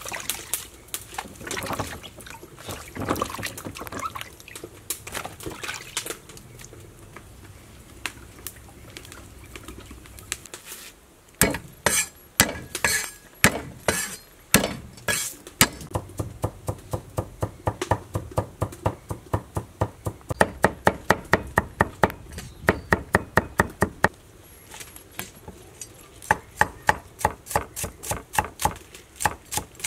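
Cleaver chopping garlic on a wooden chopping board: after some softer, irregular clatter, a long run of sharp, even knocks begins about a third of the way in, about four strokes a second.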